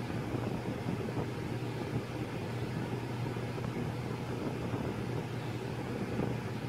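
Domestic cat purring steadily close to the microphone, a continuous low, rough rumble.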